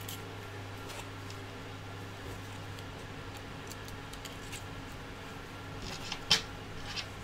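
Thin 3D-printer wires being pulled through a frame hole by hand, with faint scrapes and ticks and one sharp click about six seconds in, over a steady low hum.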